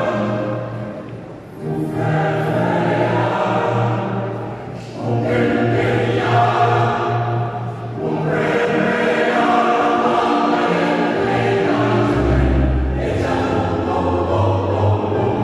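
Mixed choir singing a sustained choral piece in phrases, with brief breaks between them, accompanied by electronic keyboards. Deep keyboard bass notes come in about twelve seconds in.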